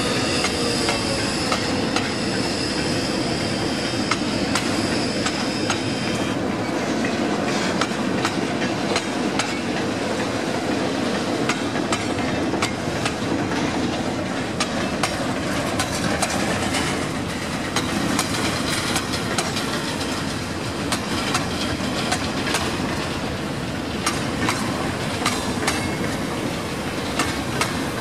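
Freight train of empty grain hopper cars rolling past at close range: a steady rumble with the clickety-clack of wheels over rail joints. A thin high whine stops about six seconds in.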